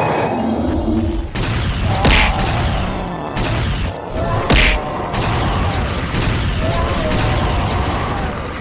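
Cartoon fight sound effects: two heavy hits, about two seconds in and again about four and a half seconds in, over a dense bed of music and effects, with short shouts from the fighters.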